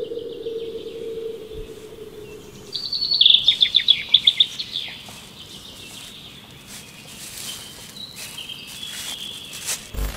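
A songbird singing a loud, rapid trill of chirps stepping down in pitch, about three seconds in, over outdoor ambience. A low steady hum fades out in the first couple of seconds, and faint clicks follow later.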